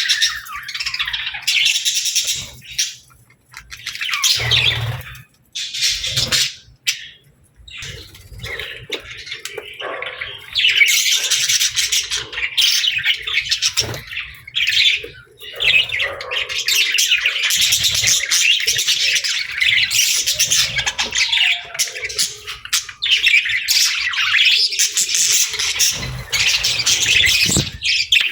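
Budgerigars chattering and chirping, a dense, fast warble with squawky notes. It is broken by short pauses in the first ten seconds, then runs on without a break.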